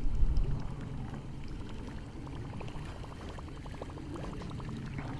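Low rumble of wind on the microphone and water around a fishing boat, louder at the very start. A run of quick, faint, evenly spaced clicks in the middle.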